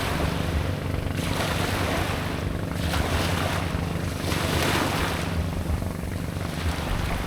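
A boat's engine drones steadily with a low hum while sea water washes and splashes in repeated surges every second or two, with wind buffeting the microphone.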